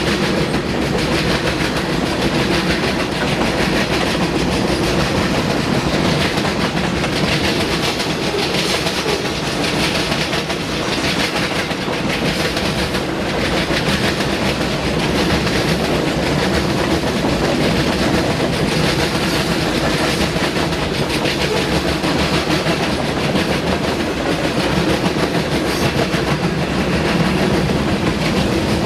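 Freight cars of a Canadian National train rolling past close by: a steady rumble of steel wheels on rail with continuous clatter as the wheels pound across the diamond crossing.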